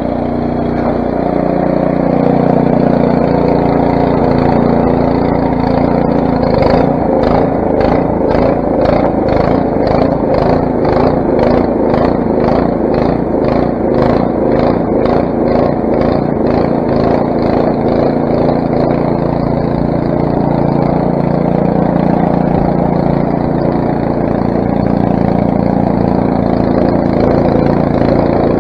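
Craftsman snowblower's 6 hp Briggs & Stratton engine running steadily. A regular pulsing of about two beats a second rides over it through the middle part.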